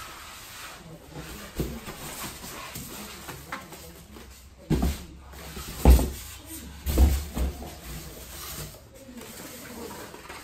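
Cardboard box and foam-packed air purifier being handled, with rustling and scraping of cardboard and several dull thumps about halfway through, the loudest near the middle, as the box and unit are set down on a tile floor.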